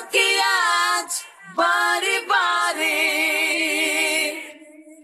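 Isolated male lead vocal singing a Bengali song without accompaniment: short phrases, then a long held note with vibrato that fades out near the end.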